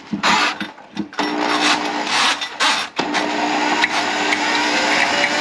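Small electric motor running with a rattle. It cuts out about a second in, restarts, dips briefly near three seconds, then runs steadily.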